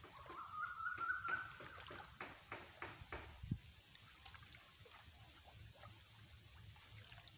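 Shallow pond water splashing and sloshing in a quick run of strokes as a cast net is gathered in by hand, dying down after about four seconds. A thin, slightly rising whine lasting about a second and a half sounds near the start.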